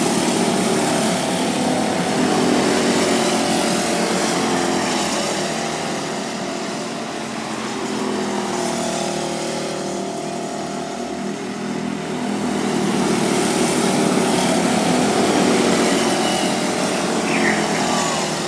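Small engines of several microd race cars running at speed around a paved oval, their pitches sliding up and down as they pass. The sound swells twice as cars come by close.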